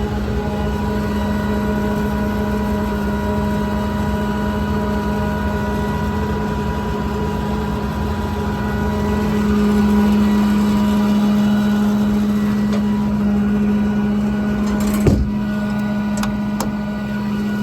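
Steady drone of a Ram 5500's 6.7 Cummins diesel held at raised RPM, driving the PTO-powered VMAC air compressor, which is building air pressure. The drone swells a little about ten seconds in. A sharp click comes near the end, followed by two light ticks.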